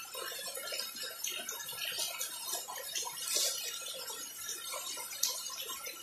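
Rain falling onto grass and a puddle of standing water: a dense, steady patter of drops with many small ticks, and a few louder close drop hits, one about five seconds in.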